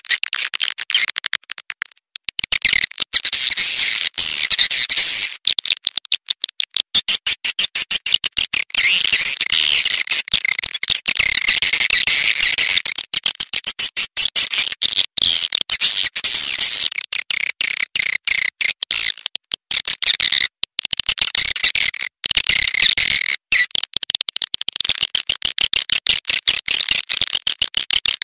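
Swiftlet calls, a dense run of rapid high chirps and twitters, played as a lure sound to call swiftlets.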